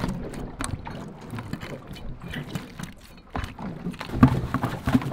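Boat ambience with wind and scattered knocks. From about three and a half seconds in, a metal chum masher pounds whole fish in a tub, giving a run of heavy thuds.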